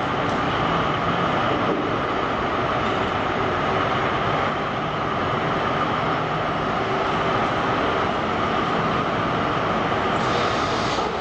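Heavy diesel engine of a semi-tractor running steadily while the truck moves slowly, echoing in a large hall, with a short burst of hiss near the end.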